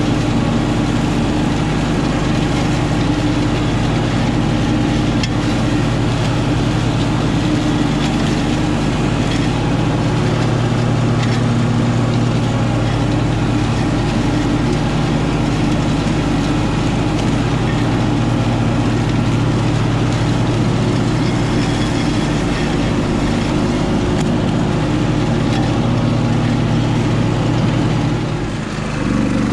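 Husqvarna Rider front-deck riding mower's engine running steadily under load while the deck cuts through tall rough grass and weeds. The sound dips briefly near the end.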